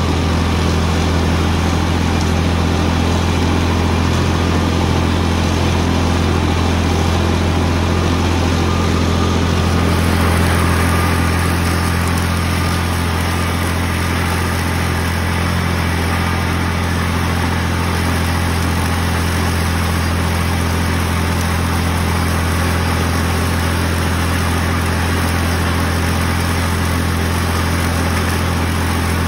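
Tractor engine running steadily with a deep, even drone at constant speed, driving a mower that cuts down strawberry plants.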